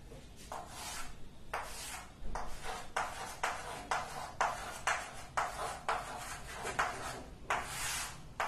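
Chalk on a blackboard: a quick run of short tapping, scratching strokes as small circles are drawn, several a second, with a longer scraping stroke near the end as a straight line is drawn.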